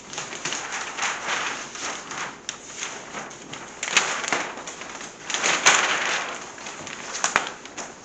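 Large paper plan sheets rustling and crinkling as they are lifted, folded and shuffled, in uneven swells, with a few sharper snaps of the paper.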